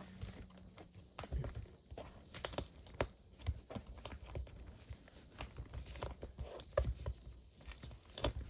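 Scattered clicks and knocks with crinkling of cardboard and tape, as the doorknob hardware is worked loose from a cardboard door by hand.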